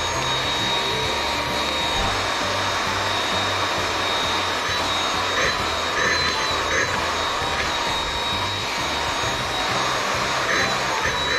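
Cordless stick vacuum cleaner running steadily with a thin high whine, its nozzle drawn over a lying cat's fur.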